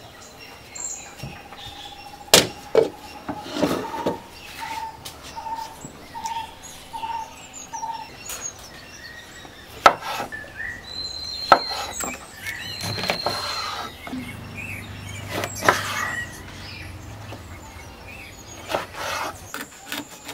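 Kitchen knife cutting spiny gourd on a wooden chopping board: sharp knocks every few seconds as the blade strikes the board. Birds chirp and whistle in the background, including a run of short repeated notes and two held high whistles.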